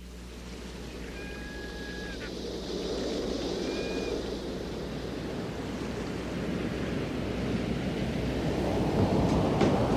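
Ocean surf and wind sound effect opening a pop-rock song, swelling gradually over a steady low drone, with two short high whistling tones early on. Plucked notes begin near the end as the band's music comes in.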